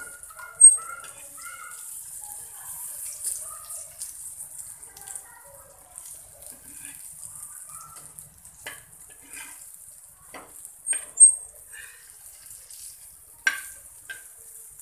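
Surmai (king mackerel) steaks sizzling in oil on a flat tawa, with a steady high hiss. A slotted metal spatula scrapes and clicks against the pan as the pieces are turned over, with a run of sharp clicks in the second half and two louder knocks, one just after the start and one about eleven seconds in.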